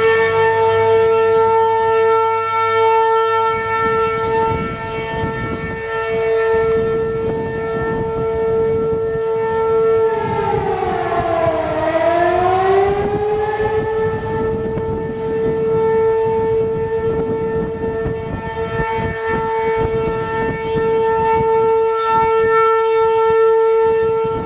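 Outdoor civil-defense siren sounding a tornado warning, holding one loud steady pitch. About ten seconds in, the pitch sags to a lower note and climbs back over a few seconds. A rough, gusty wind rush on the microphone runs underneath.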